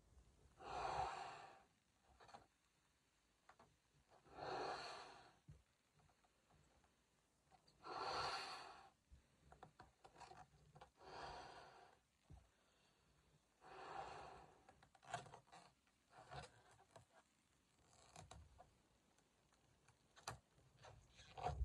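A latex balloon being blown up by mouth: five loud breaths about three seconds apart, then faint rubbing and small clicks from the latex as the neck is knotted.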